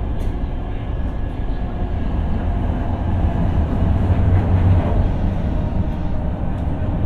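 Steady low rumble of a Shanghai Metro Line 2 train standing at a platform with its doors open, swelling a little in the middle.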